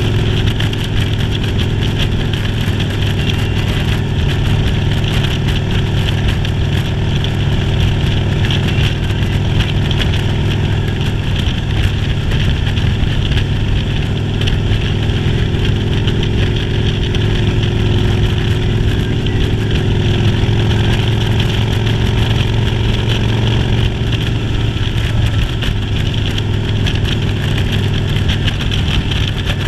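Motorcycle engine running steadily at an even speed during a ride, with no change in pitch.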